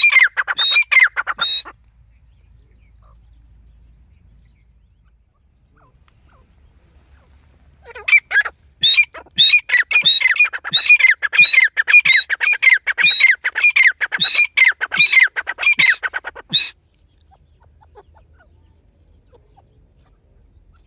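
Female grey francolin calling: a fast series of harsh calls, about two a second, each sliding down in pitch. A short run ends about two seconds in, and after about six seconds of quiet a longer run goes on for about eight seconds.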